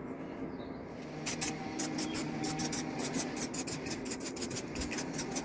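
Enamel spray paint being applied in quick short bursts: a rapid run of hissy puffs, about five a second, starting about a second in.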